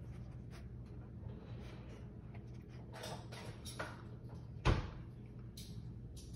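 Small knocks and rustles from a dog shifting against a sliding glass door, with one sharp thump about four and a half seconds in.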